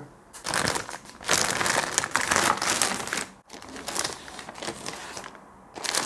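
Plastic anti-static bag crinkling and rustling as a motherboard is slid out of it by hand, loud for about the first three seconds and quieter after.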